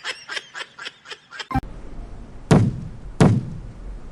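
A person laughing in short quick bursts, then two heavy thuds about two-thirds of a second apart, the first coming about a second after the laughter stops.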